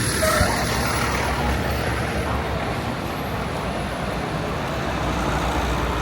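Steady city street traffic noise from vehicles on a busy avenue, with a brief higher tone about half a second in.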